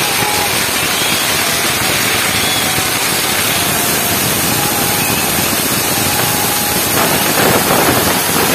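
Ground fountain firework spraying sparks with a loud, steady hiss, a little louder near the end.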